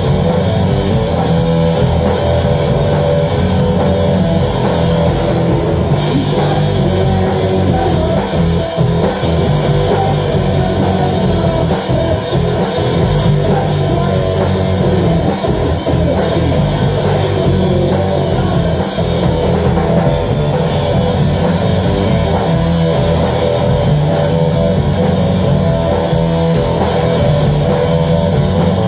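A live rock band playing loudly, with guitar and a drum kit keeping a steady beat on the cymbals.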